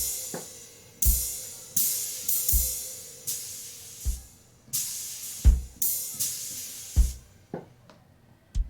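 Sampled brush drum kit being played: a bass drum hits about once a second, with long hissing brush and cymbal swishes between the hits.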